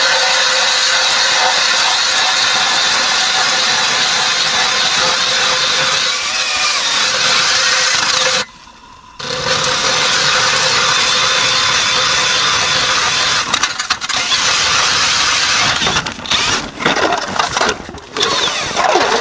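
DeWalt DCD999 cordless drill turning a 160 mm Iceberg ice auger, boring a hole through river ice: a steady, loud motor whine. It stops briefly about halfway through, then runs on and becomes stop-and-start in short runs near the end.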